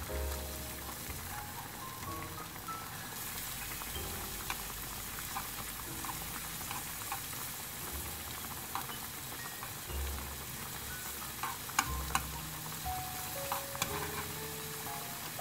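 Sliced green onions sizzling in oil in a nonstick frying pan, with metal chopsticks stirring and clicking against the pan now and then, loudest about twelve seconds in. Soft background music with a simple melody and bass notes plays under it.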